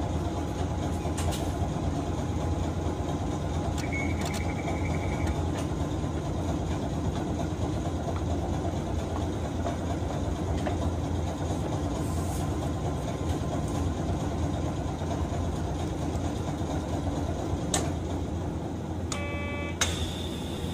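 Hiroshima Electric Railway 1900-series tram running: a steady low hum and rumble. A short high tone sounds about four seconds in, and a brief chime-like ring comes near the end.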